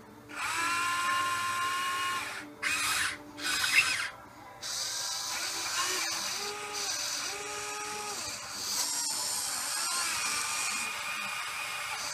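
Huina 580 RC excavator's electric motors and gearboxes whining as the boom and arm move. The whine starts and stops in a few short runs in the first four seconds, then runs on with shifting pitch.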